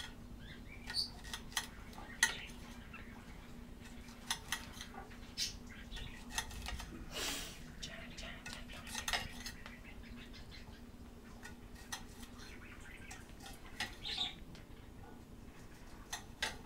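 A kitchen knife chopping green beans on a ceramic plate: irregular clicks and taps as the blade strikes the plate, with a faint steady hum underneath.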